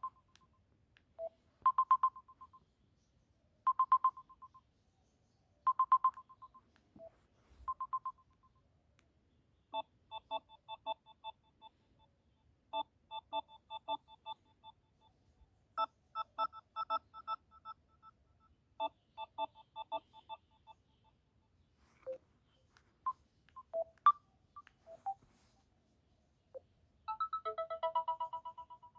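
Samsung Galaxy A02 ringtones played one after another. First comes a short electronic tone repeating about every two seconds. Then a quick patterned melody of bright beeps, then a few scattered single tones, and a new ringtone starts near the end.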